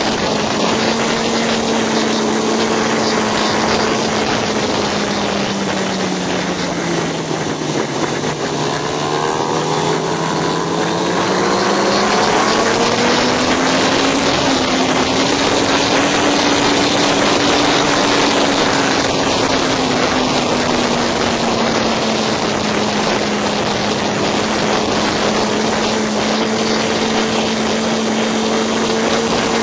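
Racing motorcycle engine pulling hard at high revs, with heavy wind rush on the onboard microphone. The revs sink for several seconds about a quarter of the way in, then climb back and hold steady.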